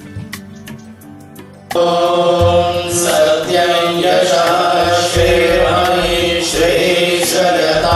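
Devotional music with chanting: quiet at first, then about two seconds in it swells suddenly into loud, sustained chanted tones over a low drum beat and cymbal-like shimmer, and cuts off abruptly at the end.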